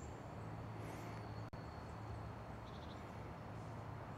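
Quiet outdoor background: a steady low hum with a faint high whine and a few faint, high bird-like chirps.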